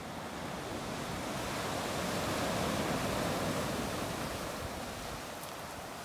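Sea surf: the rush of a wave swells to its loudest about halfway through, then eases off.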